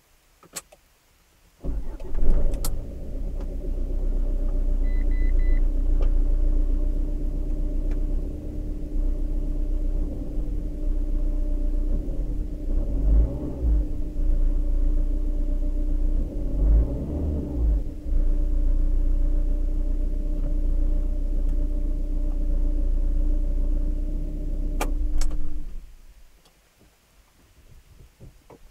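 Fiat Doblo's 1.3 Multijet four-cylinder turbodiesel, heard from inside the cabin: it starts about two seconds in, idles steadily, is revved briefly twice, and is switched off a few seconds before the end. A click comes before the start, and a short beep sounds about five seconds in.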